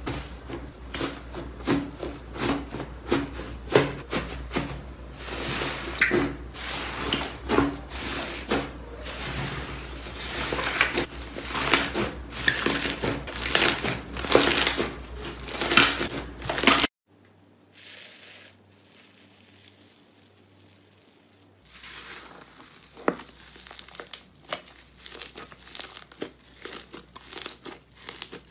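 Hands pressing and squishing slime, a dense, uneven run of crackling and popping. It cuts off suddenly about two-thirds of the way through. After a few seconds of near quiet, softer crackling follows as a second, fluffy slime is stretched.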